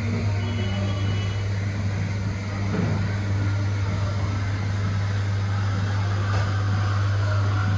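A steady low mechanical hum under an even wash of background noise, unchanging throughout.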